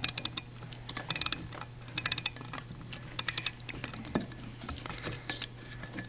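Small metal clicks and taps in short rapid clusters, about one cluster a second and weaker after about four seconds, as brass floats and their hinge pin are worked into place on an Edelbrock (Carter AFB-style) carburetor. A steady low hum runs underneath.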